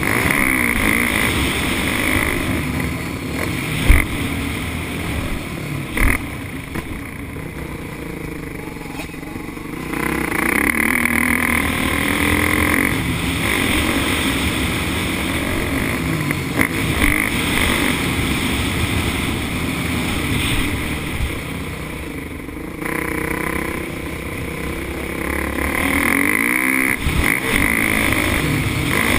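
Motocross dirt bike engine revving up and down as the rider works the throttle around the track, easing off for a few seconds twice, over wind noise. Two sharp thumps about four and six seconds in.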